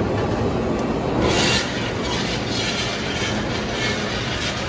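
A shop saw cutting steel stock to length: a steady mechanical running noise, with a brief brighter hiss a little over a second in.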